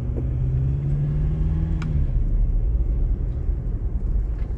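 Car running at low speed, heard from inside the cabin: a steady low rumble of engine and road, with an engine hum that fades back into the rumble about two seconds in.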